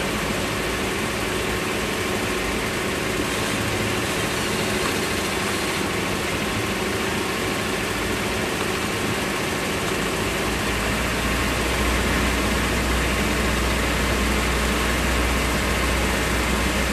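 Motorboat's gasoline engine running steadily underway, mixed with the rush of water and wind. About ten seconds in, a deeper low rumble grows and holds.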